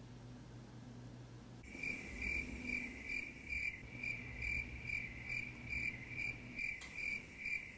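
Cricket chirping, a comic sound effect for an awkward silence, starting suddenly about two seconds in. It pulses evenly at about two chirps a second over a faint room hum.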